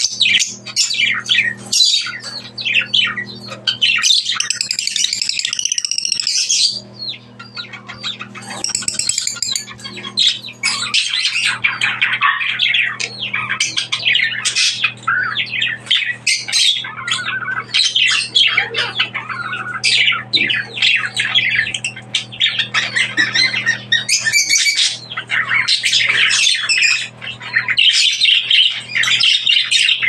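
Many parrots squawking and chirping at once: a dense, unbroken chorus of high-pitched calls over a steady low hum.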